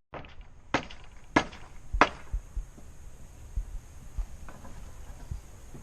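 Three sharp knocks, about two thirds of a second apart, followed by several fainter, duller thumps.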